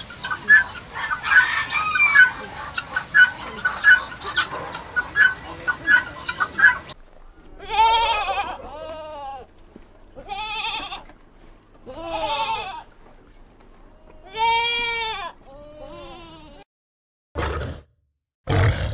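Chickens clucking busily for about the first seven seconds. The sound then changes abruptly to an animal bleating about five times, each call wavering and arching in pitch. Near the end come two short, loud calls with a deep rumble.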